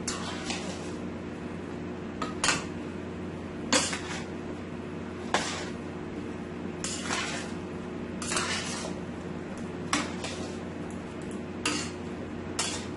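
A metal spoon stirring and tossing chunks of eggplant, chicken and potatoes in a stainless steel pot, scraping and knocking against the pot about every second and a half. A steady low hum runs underneath.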